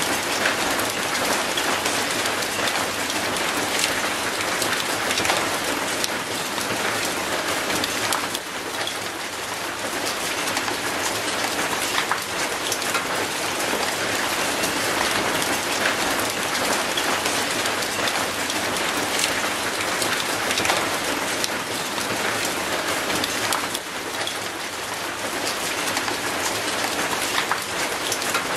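Steady rain falling on concrete and an old rusty metal gate: an even hiss dotted with many sharp ticks of single drops.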